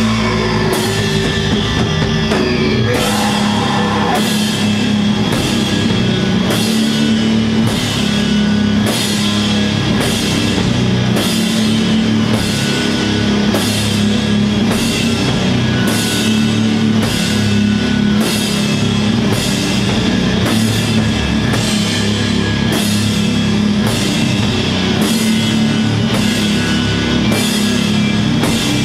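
Stoner/doom metal band playing live: a loud, sustained low riff over a slow, steady beat of about one drum-and-cymbal hit a second.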